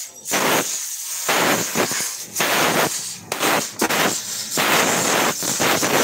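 About seven loud, short bursts of compressed gas hissing from a hose, let out from a gas cylinder in a refrigeration repair.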